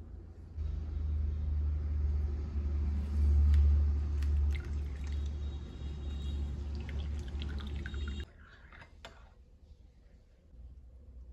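Water running or pouring with a low rumble and a few clicks, cutting off suddenly about eight seconds in.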